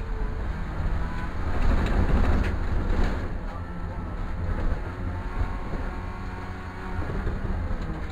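Racing car's engine running hard, heard from inside the cabin, over a heavy rumble of tyres and underbody on the dirt track; the noise swells to its loudest about two seconds in.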